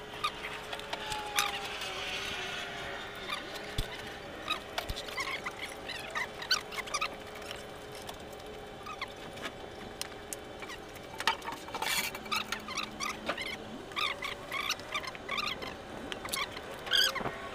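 Scattered short high chirps and squeaks over a steady mechanical hum, with a few sharp metallic clicks, the loudest about two-thirds of the way in, from tools and parts being handled while a hydraulic control valve is put back together.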